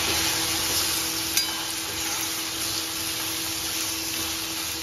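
Small prawns sizzling in hot oil in a kadai while a spatula stirs and scrapes through them, with one sharp tap about a second and a half in.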